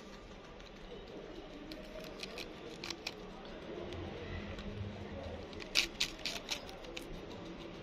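A scattering of small, sharp clicks and crackles over a faint background, with a quick run of four louder clicks about six seconds in.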